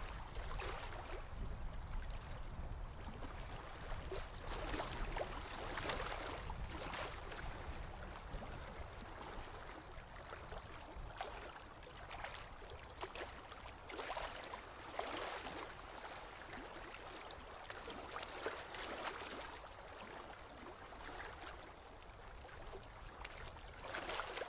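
Colouring strokes rubbing on paper, coming in irregular strokes about once or twice a second over a low steady rumble.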